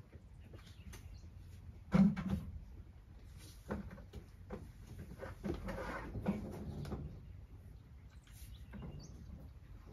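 Scattered knocks and clatter of things being handled and stepped on, the loudest a sharp knock about two seconds in. A rougher scraping stretch follows in the middle, and there is a brief high chirp near the end.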